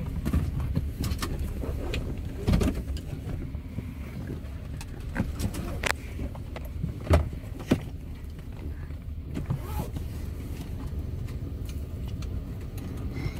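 Steady low rumble of a Boeing 747's jet engines as the jumbo climbs overhead, with a few sharp knocks, the loudest about seven seconds in.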